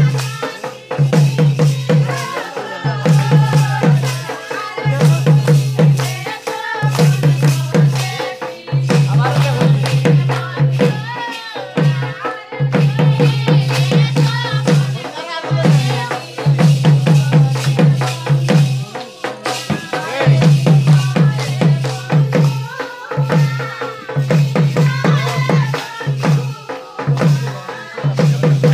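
Sylheti dhamail folk song: singing over a repeating low drumbeat and a rattling shaker-like percussion.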